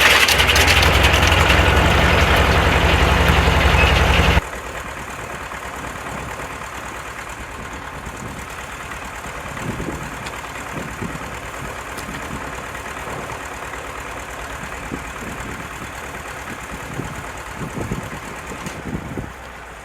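Circular sawmill running with its blade in a log, loud sawing over a low engine hum. About four seconds in the sawing stops abruptly, leaving the engine running steadily with scattered knocks and clunks, more of them near the end.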